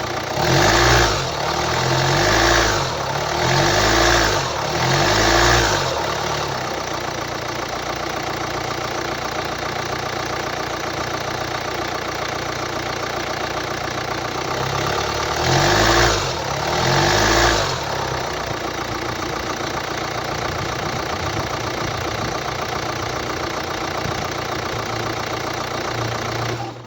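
Hyundai ix35's 2.0-litre D4HA diesel engine running with an unusual engine noise, which the seller puts down to a defective engine control unit. It idles steadily, with four quick rev blips in the first few seconds and two more about two-thirds of the way through, each rising and falling.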